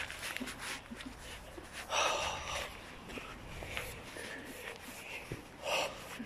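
Two loud, breathy snorts or exhales close to the microphone, the first about two seconds in and the second shortly before the end.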